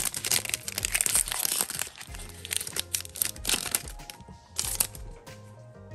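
Foil trading-card pack wrapper crinkling in the hands as it is opened, densely for the first couple of seconds and again briefly near the end, over background music.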